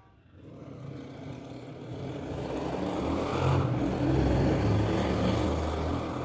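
A motor vehicle passing by, a rumbling noise that swells to a peak about four seconds in and then begins to fade.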